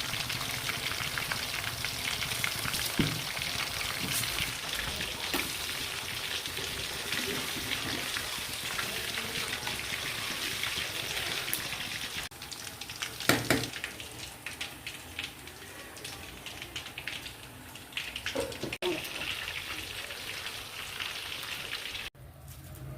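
Food sizzling in hot oil in a cooking pan, a steady crackling hiss, with a few sharp knocks of a utensil against the pan; the sizzle is weaker after about twelve seconds.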